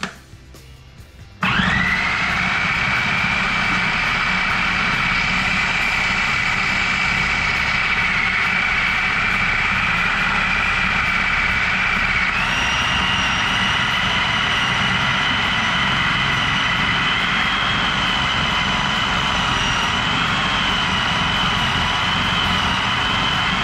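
Electric food processor switched on about a second and a half in, its motor whine quickly rising to speed and then running steadily as it grinds and mixes raw ground pork with seasonings. About halfway through the whine steps up in pitch and stays higher.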